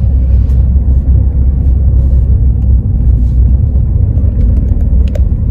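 Car driving slowly on a narrow rural road, heard from inside the cabin: a steady low rumble of engine and tyres.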